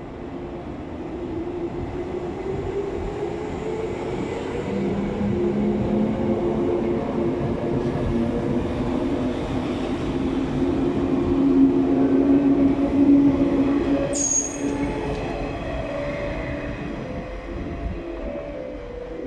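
JR 185-series electric train pulling out of a station and picking up speed: its traction motors whine, the tones slowly rising in pitch, over the running noise of the cars. A short, high wheel squeal comes about fourteen seconds in, and the sound then eases off as the train draws away.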